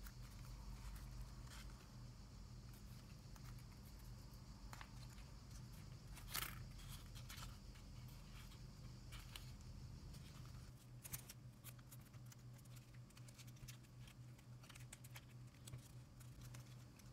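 Faint rustling and crinkling of masking tape being handled and pressed onto a small slot-car body, with small ticks, a brief louder crinkle about six seconds in and a sharp click a few seconds later, over a steady low hum.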